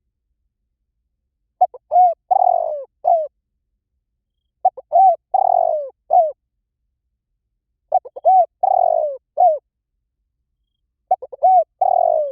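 Spotted dove cooing: four repeated phrases about three seconds apart, each made of a couple of short notes, a longer falling coo and a closing short note.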